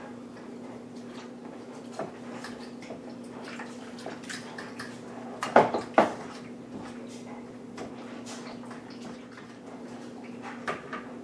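A utensil stirring and clinking against a mixing bowl as cream cheese, sour cream and chicken stock are mixed together, with a few louder knocks about halfway through. A steady low hum runs underneath.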